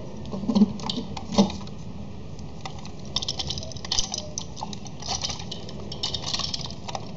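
Gigo plastic building pieces and battery box being handled and pressed together: a run of small plastic clicks and rattles, thickest in the second half.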